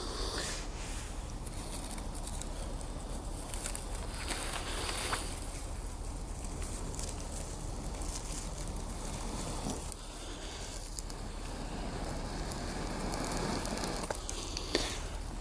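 Small fire crackling, with scattered pops over a steady hiss.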